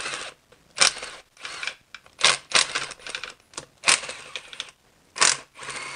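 A hand ratchet on a long extension loosening oil pan bolts. There is a sharp crack about every second and a half, each followed by a short run of rapid clicking.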